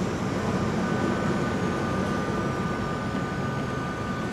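Von Roll funicular car running up its track with a steady low rumble. A steady, high two-note squeal sets in about a second in and holds.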